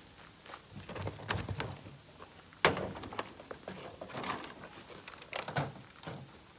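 Plastic junk being set and knocked into a pickup truck bed: one sharp clunk about two and a half seconds in, with scattered lighter knocks and rustling of handled plastic around it.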